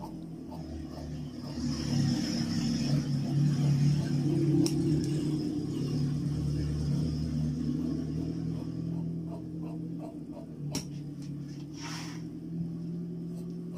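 Tailor's scissors cutting through cloth, with a few sharp snipping clicks, most of them in the last few seconds. Under them runs a steady low hum and rumble, which is the loudest sound.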